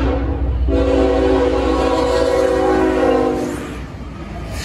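CSX diesel freight locomotive sounding its air horn for a grade crossing. The end of a short blast is followed by a long blast that stops about three and a half seconds in, all over the low rumble of the engine. As the horn stops, the locomotive rolls past and the wheels clatter on the rails.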